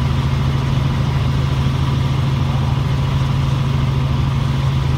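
Helicopter in flight heard from inside the cabin: a loud, steady low drone of engine and rotor that does not change.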